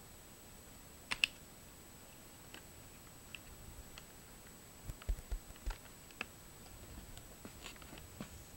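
Plastic clips of an Asus Eee PC 1005HA netbook's top-case frame snapping into place as it is pressed down along its edge. Irregular sharp plastic clicks: two quick ones about a second in, then a cluster of clicks with dull knocks around five seconds in, and a few more near the end.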